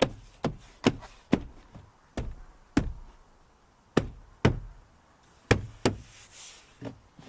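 Plastic door trim panel being struck by hand to snap its clips into the door: about eleven sharp knocks, mostly in quick pairs, with a short rustle near the end.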